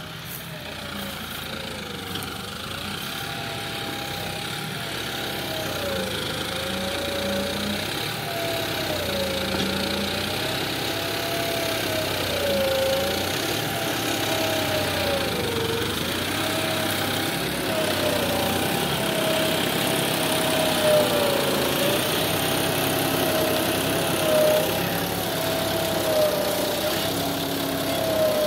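John Deere tractor's diesel engine running under load while pulling a tillage implement through stubble soil, getting louder as it comes closer. The engine note wavers, dipping and rising every couple of seconds.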